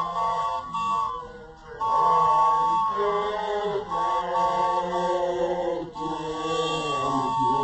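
A group of voices chanting together unaccompanied, a Sesotho initiation-school (makoloane) chant, in long held phrases with a short break about one and a half seconds in.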